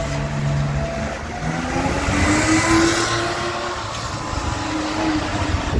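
A historic rally car's engine pulling as the car drives past, the engine note rising in pitch and loudest about halfway through, then easing off.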